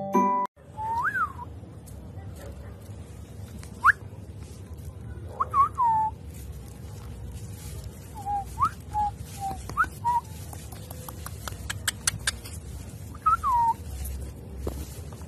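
Young puppies whimpering: short, high, squeaky whines that glide up and down, every second or few, over a low steady hum.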